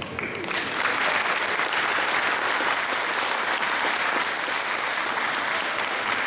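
Audience clapping, swelling up about half a second in and then holding steady.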